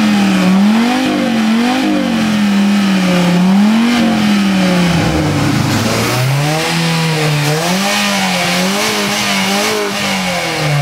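Car engines revved hard in turn in a rev battle, each run a string of rising and falling blips. First the Dodge Viper's V10 is blipped, and its revs drop away about five seconds in; a second engine, the Honda Prelude's four-cylinder, then takes up a new run of repeated revs.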